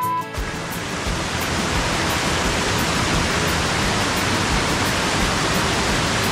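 Water rushing steadily over a river weir, a continuous even roar of white water, broken only by a very short gap right at the start.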